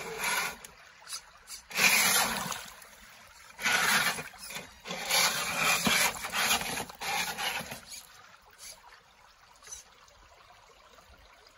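Traxxas 2WD RC car driving in four short bursts over wet creek-side rocks, its tyres and chassis scraping and grinding on the stones, then only a faint trickle of water for the last few seconds.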